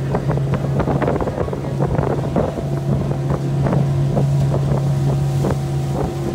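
Open aluminium skiff's motor running steadily under way, a constant hum, with frequent irregular slaps of the hull against small waves and wind on the microphone.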